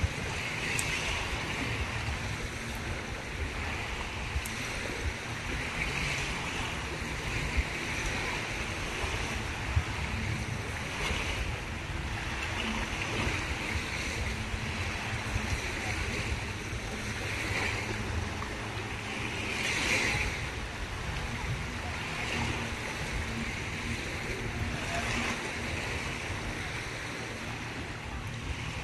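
Small waves washing onto a sandy beach: a steady hiss of surf that swells every few seconds, with a low rumble underneath.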